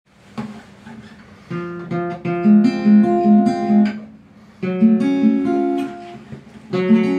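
Acoustic guitar playing a riff: phrases of ringing notes and chords, broken by short pauses about four and six and a half seconds in.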